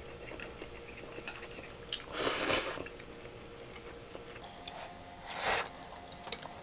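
A person slurping instant ramen noodles off a plate: two long slurps, one about two seconds in and another near the end, with faint clicks of chopsticks against the plate and some chewing between.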